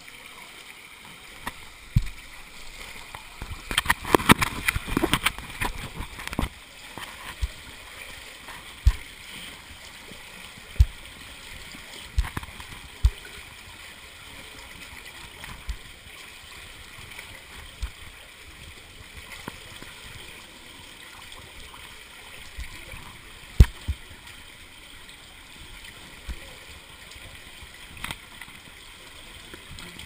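Shallow water running through a drainage pipe, with scattered thumps and knocks as a person crawls through it, body and gear bumping the pipe. There is a flurry of splashing and knocking about four seconds in, and the sharpest knock comes near the end.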